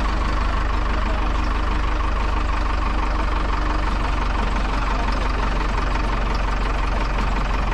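Engine of a masonry block forklift running steadily as its boom lifts a stuck snow plow truck out of a ditch, with a constant low hum.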